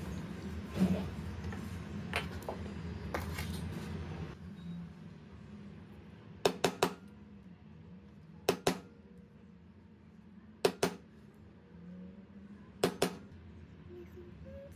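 Small metal craft tools clicking: a few soft clicks at first, then sharp metallic clinks in groups of two or three, about every two seconds.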